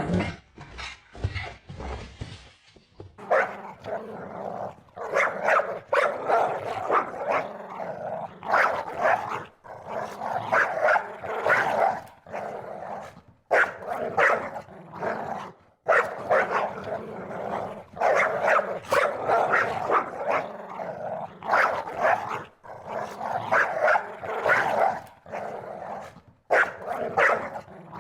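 Dog barking over and over, starting about three seconds in, in quick runs broken by short pauses.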